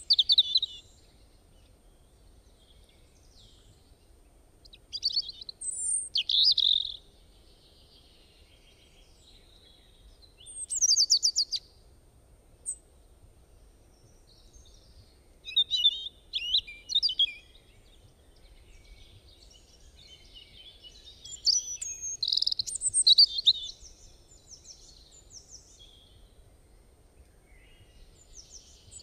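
Bird chirping and singing in short bursts of quick high notes every few seconds, with quiet gaps between.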